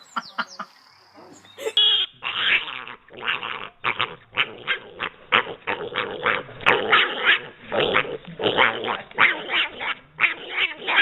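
A dog barking over and over in quick succession, starting about two seconds in.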